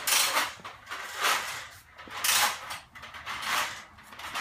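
Footsteps scuffing and an air hose scraping over a concrete garage floor, in short sliding bursts about once a second.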